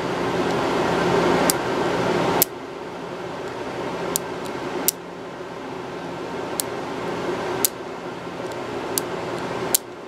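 A steady mechanical hum, like a fan running, louder for the first two seconds or so and then dropping abruptly with a click, with scattered light clicks, about eight in all, through the rest.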